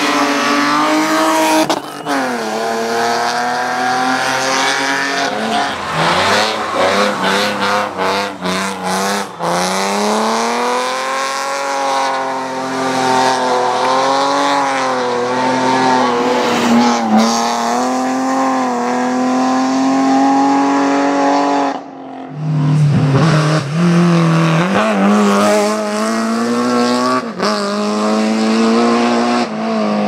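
Rally car engines revving hard through a series of passes, their pitch climbing and dropping again and again with gear changes, lifts and braking into corners.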